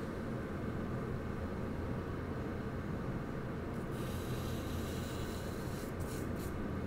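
Charcoal scratching on paper: a scratchy stroke about four seconds in that lasts about two seconds, then a couple of short strokes. A steady low room rumble runs underneath.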